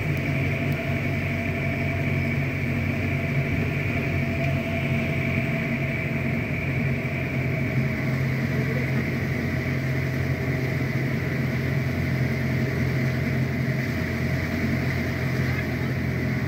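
Motor vehicle engine running steadily with road noise, heard from inside the moving vehicle.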